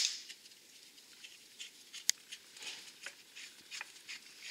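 Faint, scattered light metallic clicks and taps of a bolt being pushed and turned by hand in an ATV frame mount, with one sharper click about two seconds in.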